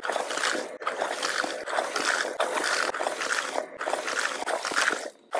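Toilets flushing and refilling: rushing, trickling water heard as a string of short flush clips cut together, with a few sudden brief dropouts between them.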